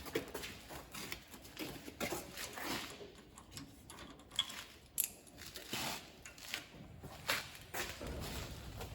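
Scattered clicks and knocks of a mini skid steer's access cover being unlatched and opened, with no engine running.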